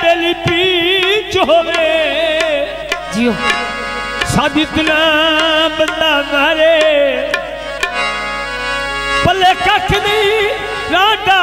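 Instrumental introduction of a live Punjabi folk song: tabla strokes under a wavering, ornamented melody line played on a melodic instrument, continuous throughout.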